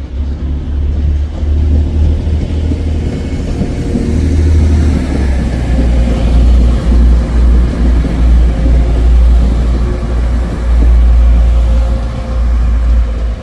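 A diesel train's engine running close by: a loud, deep rumble that swells and dips.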